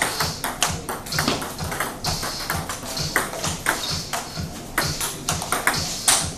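Table tennis rally: the ball clicks sharply off the paddles and the table, a few quick, irregular ticks a second.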